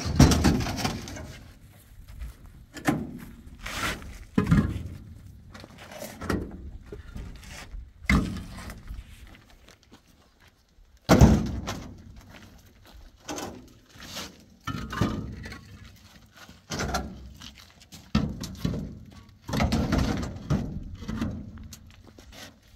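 Building blocks being handled and dropped onto one another: a long run of irregular heavy thuds, one every second or two, the loudest at the start and about eleven seconds in.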